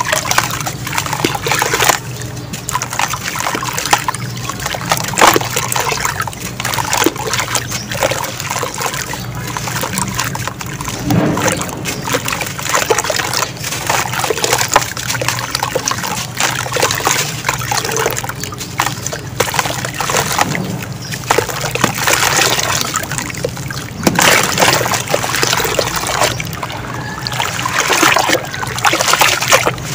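Crumbling of a dry sand-and-cement chunk in the hands, gritty crunching with sand trickling and splashing into water in a tub. Near the end, hands squish and press wet sand under the water.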